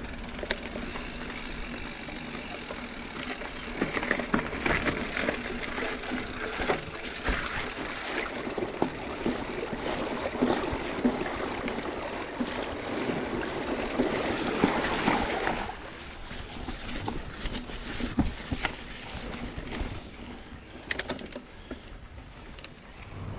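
Mountain bike riding over a dirt trail: tyres rolling with scattered knocks and rattles. It is louder for most of the stretch and quieter for the last several seconds.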